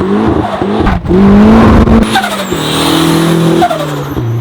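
Turbocharged 1.6-litre Mazda Miata engine revving hard, its note climbing and dropping several times with short breaks between, then settling to a steady lower note near the end. A high whistle slides in pitch over it.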